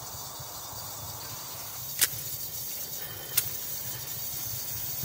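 Coleman Dual Fuel camp stove hissing steadily as its burner is being lit, with two sharp clicks of a long lighter about two seconds and three and a half seconds in.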